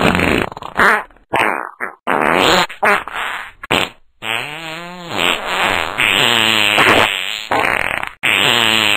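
A string of fart sounds: several short blasts in the first few seconds, then longer, pitched ones that waver in pitch.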